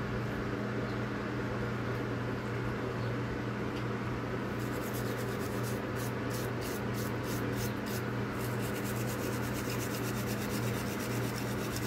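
Steel wool scrubbing the vinegar-wet plastic housing of a pressure pump's flow-switch valve to scour off corrosion. It starts as a steady rub, then from about four seconds in turns into quick rapid back-and-forth strokes, over a steady low hum.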